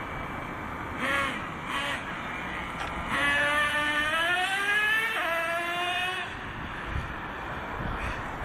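Traxxas T-Maxx's VX 18 nitro engine revving: two short throttle blips about a second in, then a long high-pitched rising run of about three seconds with a sudden drop in pitch midway, the two-speed transmission shifting up, before it falls back to a lower drone.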